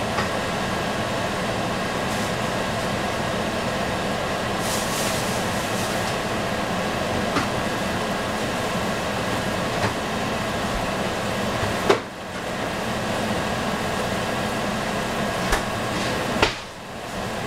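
Onion and shiitake mushrooms frying in a covered stainless steel saucepan on a gas stove: a steady sizzling hiss. A couple of sharp clicks come in the second half.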